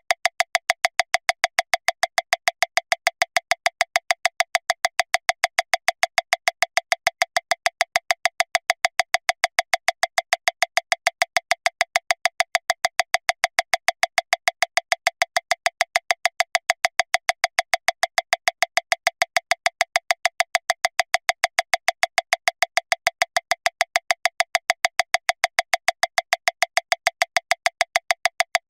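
Metronome clicking at 405 beats per minute, one click about every 0.15 seconds. The clicks are even and all alike, with no accented beat.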